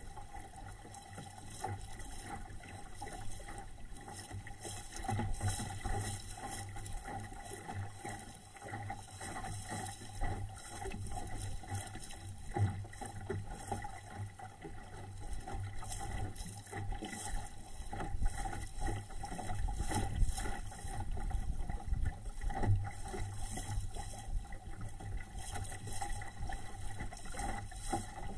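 Water rushing and splashing along the hull of a small home-built SCAMP sailboat under way in choppy water, surging irregularly, with a low rumble of wind on the microphone.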